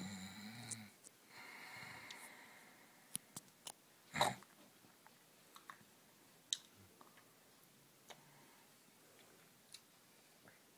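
Quiet room tone with scattered soft clicks and one louder knock about four seconds in: handling noise from a handheld camera moving around a sleeper on a bed.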